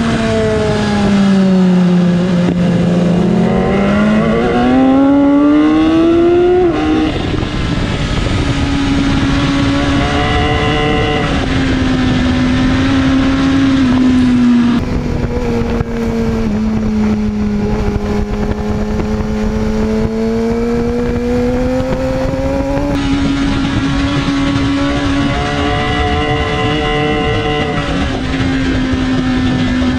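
A sportbike's inline-four engine heard onboard at track speed under steady wind noise. The engine pitch dips and climbs over the first seven seconds, drops abruptly, then holds fairly steady with slow rises and falls through the corners.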